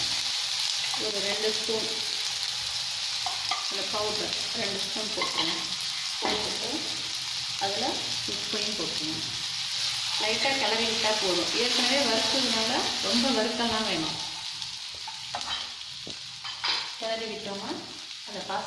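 Onions, tomatoes and green chillies sizzling in hot oil in a non-stick kadai while a wooden spatula stirs and scrapes them. The sizzle eases somewhat about three-quarters of the way through.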